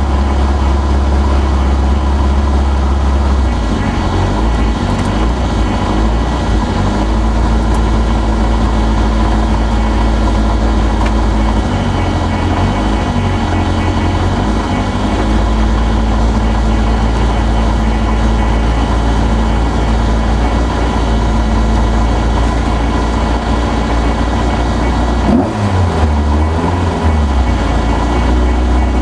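Toyota Corolla GT 1600 rally car's engine idling with the car standing still, heard from inside the cabin, the revs shifting up and down briefly a few times.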